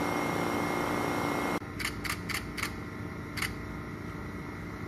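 Steady room hum that drops off suddenly about a second and a half in, followed by a few light clicks from a phone camera being handled at a microscope eyepiece.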